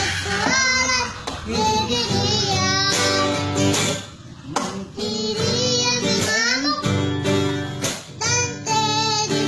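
Music: a child's voice singing, with guitar accompaniment.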